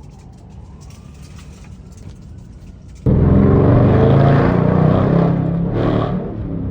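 Faint siren wail, then about three seconds in a sudden loud burst of V8 engine and exhaust sound from the 2019 Jeep Grand Cherokee's 5.7 Hemi V8 while the vehicle drives.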